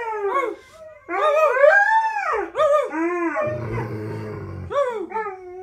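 Siberian huskies howling in wavering calls that rise and fall in pitch. About three and a half seconds in comes a low growl lasting about a second, then two short falling howls near the end.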